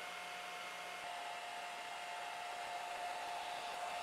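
Handheld hair dryer running steadily, with a whine over the rush of air, heating the glass to soften the screen adhesive.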